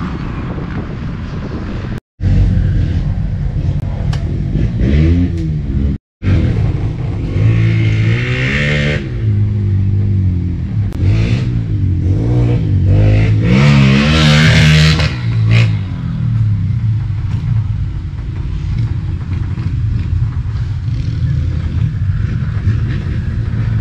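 Several small dirt-bike (pit bike) engines revving up and down as they race on a dirt track, their pitch rising and falling and overlapping, loudest about 14 seconds in. The sound cuts out briefly twice, near 2 and 6 seconds in.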